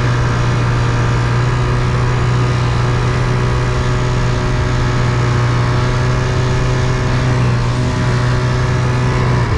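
A vehicle engine running loud and steady at a constant speed, its pitch unchanging.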